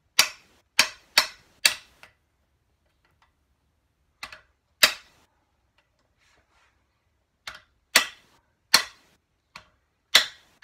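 Hammer blows on a hand impact driver in a primary chaincase cover screw: about eight sharp strikes, four in quick succession, then single blows a few seconds apart with lighter taps between. The impact driver is jarring loose screws that are corroded and badly rounded.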